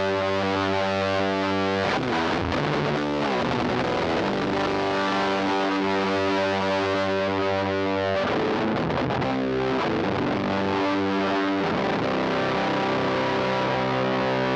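Electric guitar with P90 pickups played through a Laney Lionheart L5 Studio valve amp and taken from the amp's direct output. Long ringing chords change about every four to six seconds, with a quick run of notes about two seconds in.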